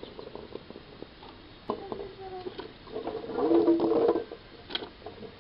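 A few light knocks and patters as loquats are dropped by hand from a metal bowl into a pot of boiling water. About two seconds in, plucked-string background music comes in, and its notes are the loudest sound.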